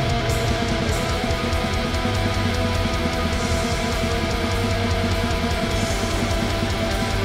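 Heavy metal music with guitars and drums, playing steadily at an even level.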